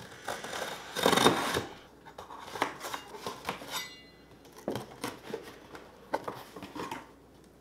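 A large kitchen knife slitting the packing tape along the seam of a cardboard box, with a short cut just after the start and a louder cut lasting about half a second about a second in. Scattered taps and rustles of cardboard follow as the box flaps are pulled open.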